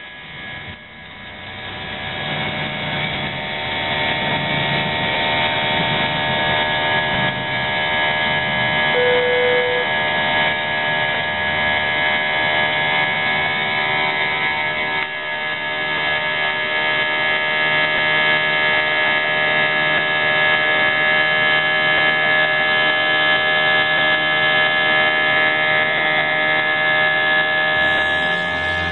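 Airliner jet engines at takeoff power heard inside the cabin: a loud, steady whine made of many fixed tones, growing louder over the first few seconds.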